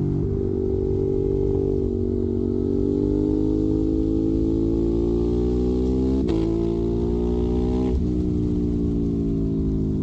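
Ducati Monster 821's 821 cc L-twin engine running through a Termignoni exhaust, its pitch slowly rising and falling under way. The sound breaks sharply twice, about six seconds in and again about eight seconds in.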